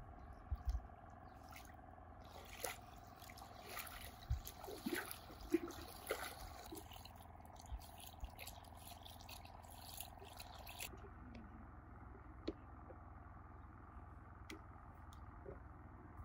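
Water trickling and dripping with scattered small clicks and knocks, busiest from about two seconds in and stopping abruptly around eleven seconds in.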